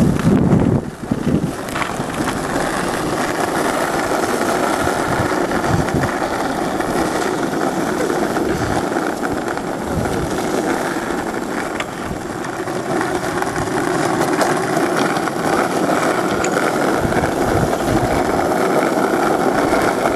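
Car engine running steadily, with a louder low rumble in the first second.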